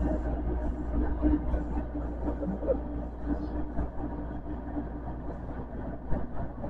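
Osaka Metro Midosuji Line subway train running through a tunnel, heard from inside the front car: a steady rumble of wheels on rail with a faint steady hum.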